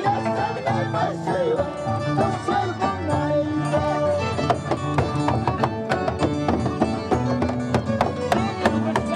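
Live Andean string music: a harp playing a lively tune, with a quick, steady pulse of plucked notes.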